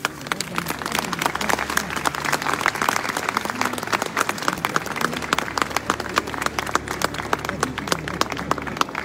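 Crowd applauding: many hands clapping, thickening about a second in and then holding steady.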